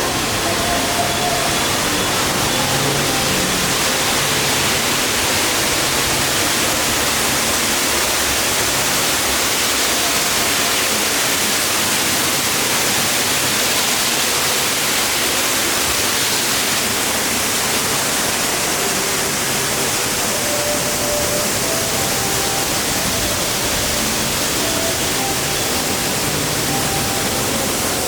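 Heavy rain falling as a steady, even hiss, with faint music under it.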